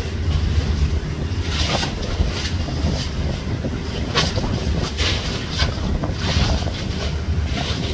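Wind buffeting the microphone: a steady low rumble under a hiss that swells in short, irregular gusts.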